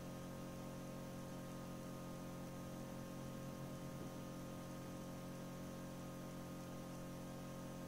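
Steady electrical hum of a running egg incubator: several fixed tones over a faint hiss.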